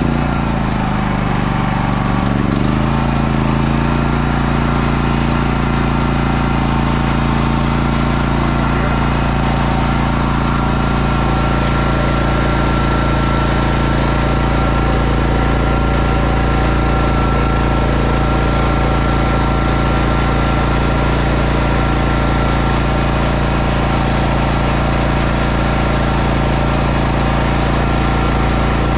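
Champion 100520 inverter generator engine running just after starting, with no load on it. Its speed shifts for the first few seconds and settles about three seconds in, then runs steadily.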